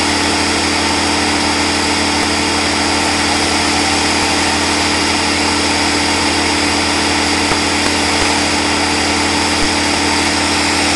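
Small engine running steadily at an unchanging pitch.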